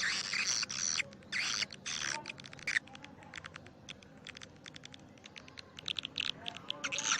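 Recorded edible-nest swiftlet calls, a swiftlet-house lure sound: dense bursts of high, rapid chirping, with quicker and softer ticking in the middle, then swelling again near the end.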